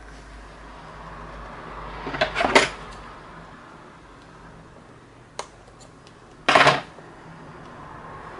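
Small hand tools and metal bag hardware being handled on a work surface: a quick run of clicks and clatter about two seconds in, a single click, then a short, louder clatter near the end.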